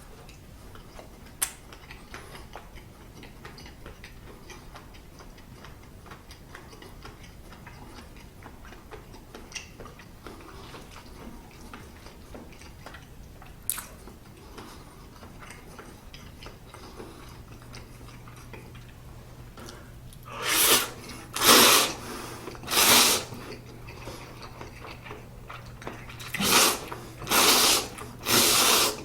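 Close-miked eating of a hot dog: quiet wet chewing and small mouth clicks, then loud crunches in two groups of three near the end.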